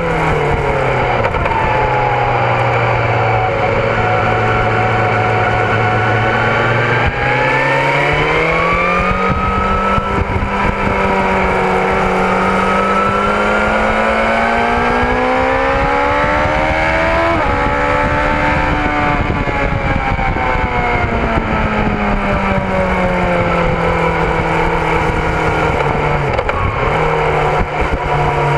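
BMW S1000RR inline-four engine at track speed, its pitch sliding down, then rising for about ten seconds, then falling and rising again, with sudden pitch jumps at the gear changes. Steady wind rush on the camera microphone underneath.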